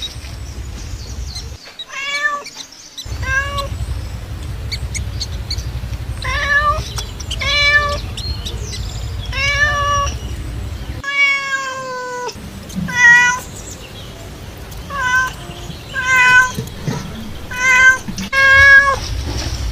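A domestic cat meowing over and over, about a dozen meows roughly one every second or two, with one longer drawn-out meow near the middle. A steady low rumble lies under the meows and drops out twice.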